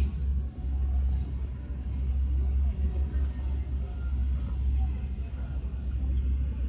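Safari ride truck's engine running with a steady low rumble while the vehicle holds in place.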